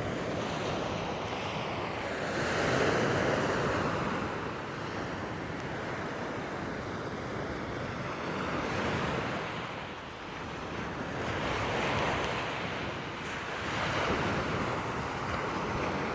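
Sea waves breaking on the shore, the surf swelling and easing every few seconds, with some wind noise on the microphone.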